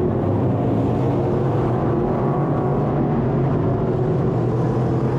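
Race car engines running steadily on a dirt oval track, a dense unbroken engine drone.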